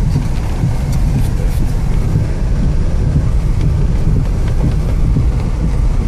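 Car driving over a rough gravel and dirt road, heard from inside the cabin: a steady low rumble of tyres and suspension, with a few faint ticks.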